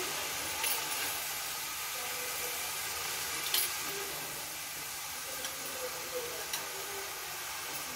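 Shredded cabbage sizzling steadily in a steel kadhai as it is stirred, with the spatula knocking and scraping against the pan a few times.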